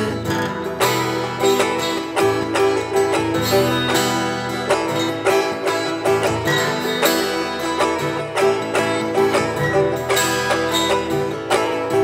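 Instrumental break of a Turkish folk song: a bağlama (saz, long-necked Turkish lute) picked in quick, even strokes over a strummed steel-string acoustic guitar, with no singing.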